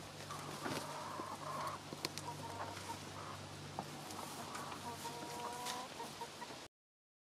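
Backyard chickens clucking softly while they feed, with short calls and a few sharp ticks. The sound cuts off abruptly near the end.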